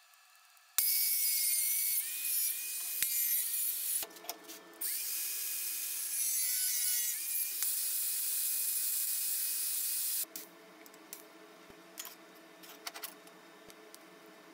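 Angle grinder grinding a small steel plate held against its disc: a high motor whine under a loud gritty hiss. It starts about a second in, eases off briefly around four seconds, and stops about ten seconds in. A faint hum with light clicks follows.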